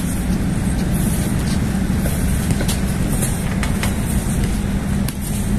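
Steady outdoor background rumble with a low hum, and a few short, irregular knocks of a basketball bouncing on the court about halfway through.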